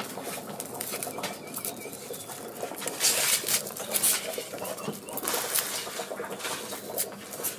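A red onion being peeled by hand and trimmed against a curved kitchen blade: dry papery skin crackling and rustling in short bursts, with small clicks and scrapes.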